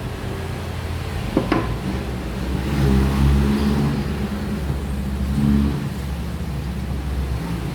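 A motor vehicle's engine running, its low rumble swelling twice. Two sharp knocks come about a second and a half in.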